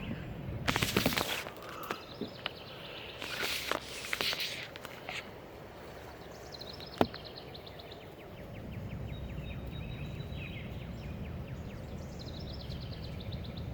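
Outdoor ambience with a bird singing rapid high trills twice. A few brief scuffing noises come in the first few seconds, and a sharp click follows about halfway through.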